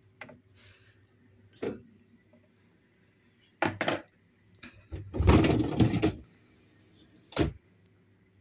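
A series of separate knocks and thumps, with a louder clattering stretch lasting about a second midway, like household things being handled and set down or shut.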